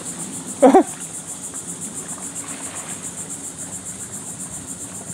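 High, steady insect chorus, pulsing fast and evenly, typical of crickets or similar insects in the mangroves. A short, loud vocal exclamation breaks in less than a second in.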